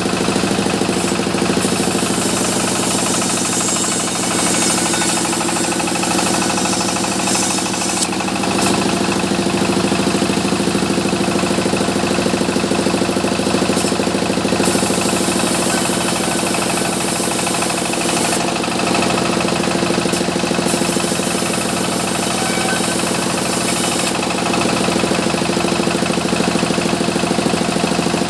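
Sawmill machinery running steadily while mahogany timber is sawn: a continuous engine-like drone with a high hiss that rises and drops away several times.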